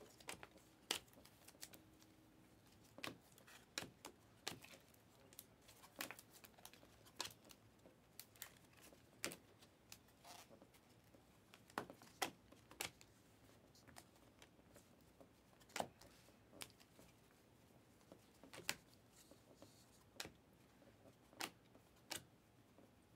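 Glossy Panini Prizm and Mosaic basketball cards being flipped through one at a time by hand: faint, irregular clicks and slides as each card is pulled off the stack, roughly one or two a second.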